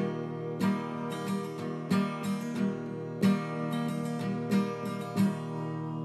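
Background music: acoustic guitar playing plucked and strummed chords.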